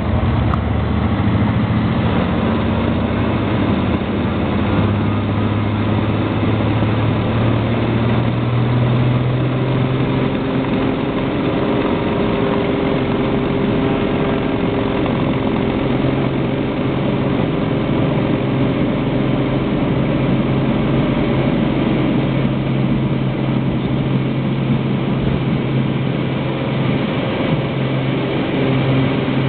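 Cessna Turbo 206's turbocharged piston engine and propeller running steadily at low power, heard from inside the cabin while the plane taxis. The drone shifts slightly in pitch a couple of times, around the middle and near the end.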